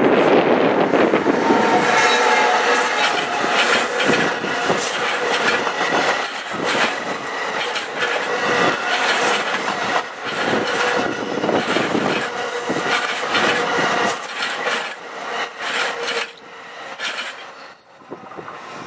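A train running past, its wheels clicking irregularly with a faint steady squeal, fading toward the end.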